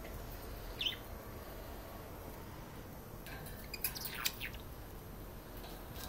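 Pet parrots (budgerigars and a conure) squabbling: one short, high chirp about a second in, then a quick burst of several sharp chirps and squawks around the middle.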